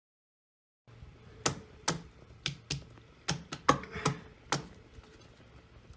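About nine sharp taps at irregular intervals over about three seconds, each short and quickly ending, over a faint steady background.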